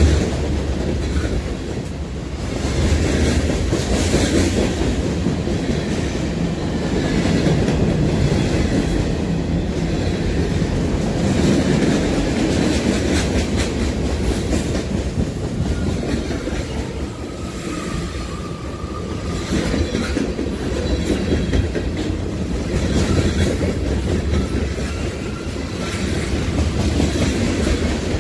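Freight train rolling past close by: a steady low rumble of its cars with the clatter of steel wheels over the rails, one car after another.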